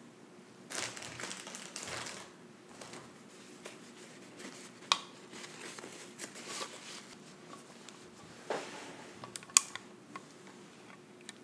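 Yellow plastic glasses being wiped clean by hand: soft rubbing and rustling, with a couple of sharp clicks as the frame is handled.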